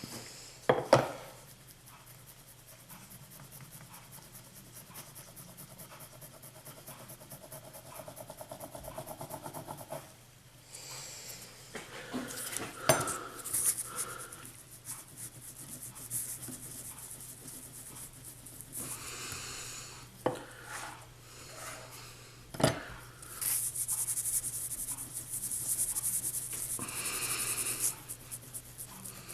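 Damp star composition being rolled out flat between brass guide rods: stretches of rubbing and scraping, with a few sharp knocks.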